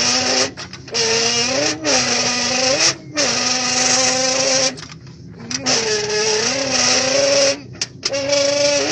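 A person imitating a Formula 1 car engine with their mouth: a held, pitched engine-like drone in about five phrases of one to two seconds, separated by short breaks. Within the phrases the pitch mostly holds level and now and then jumps up and drops back, like revs and gear changes.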